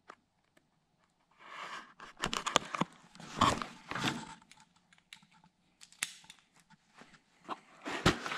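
Cardboard box being cut open and its flaps pulled apart: a few seconds of scraping, tearing and crackling cardboard, then scattered clicks and sharper taps near the end as the box is handled.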